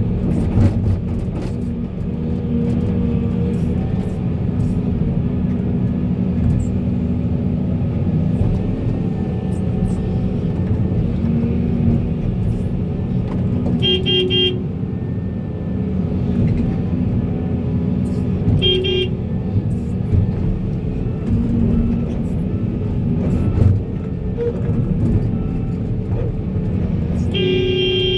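Heavy diesel machinery running steadily, with scattered light clicks. A vehicle horn toots briefly three times: about halfway through, again some five seconds later, and a longer toot at the very end.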